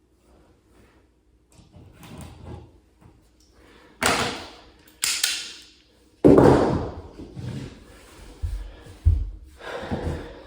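Hand tools scraping and knocking at a painted-over outlet cover plate as it is worked loose from the wall. There are three sharp scrapes about four, five and six seconds in, the third the loudest, then a few dull thumps near the end.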